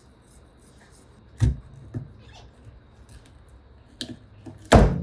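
A few scattered sharp knocks and clicks of handling, with the loudest one near the end.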